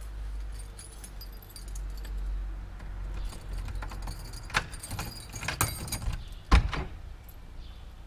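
A bunch of keys jangling while a door is unlocked, with sharp metallic clicks of the lock and one louder clack about six and a half seconds in.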